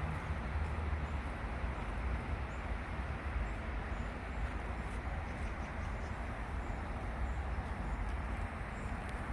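Steady outdoor ambience: a low rumble under an even hiss, with a few faint, short, high bird chirps.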